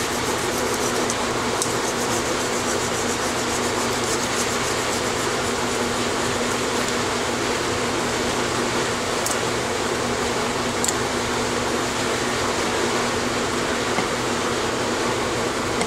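Steady whir of a motor-driven fan with a low hum, even throughout. A few faint light ticks of small hand tools on the metal cylinder head sit on top of it.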